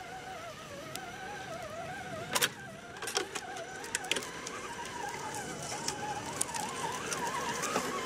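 Electric motors of radio-controlled scale crawlers whining, the pitch wavering up and down with the throttle as they creep along. A few sharp clicks come about two and a half seconds in and again around three to four seconds.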